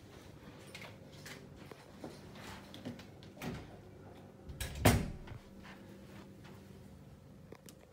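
A few light clicks and knocks, then one loud thump about five seconds in, with a low rumble: a hotel room door swinging shut.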